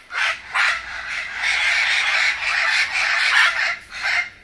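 Parrots squawking: two short, harsh calls, then a longer unbroken stretch of squawking, then two more short calls near the end.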